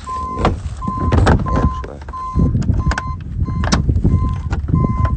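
A vehicle's electronic warning chime: a short beep at one steady pitch, repeating about one and a half times a second. Underneath are a low wind rumble on the microphone and a few handling knocks.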